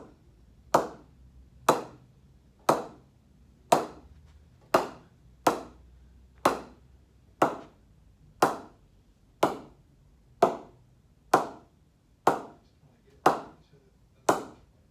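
Cricket ball bounced over and over on the face of a new willow cricket bat, about once a second, each strike a sharp knock with a short ring: testing how the blade pings across its face. The middle proves as good as any bat so far, while the face low down is a bit soft until the bat is knocked in.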